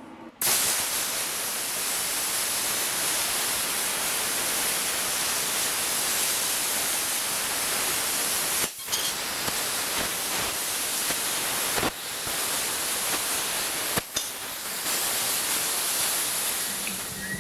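Plasma cutter cutting flame shapes out of steel plate: a steady hiss from the cutting arc that starts about half a second in, with brief breaks about 9, 12 and 14 seconds in.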